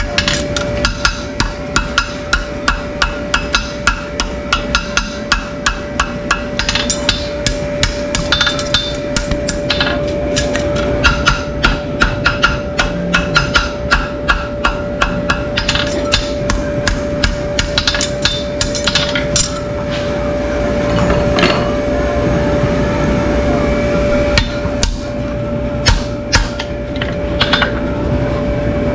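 A farrier's hammer striking repeatedly, about two to three sharp blows a second, thinning to occasional blows after about twenty seconds.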